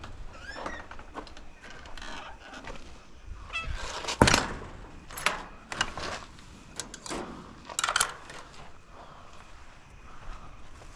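A few sharp knocks and clatters spread over several seconds, the loudest about four seconds in and another pair near eight seconds, with faint high calls between them.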